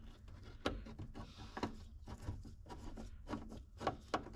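Screwdriver turning a dashboard mounting screw, with small irregular clicks and scrapes of metal on metal.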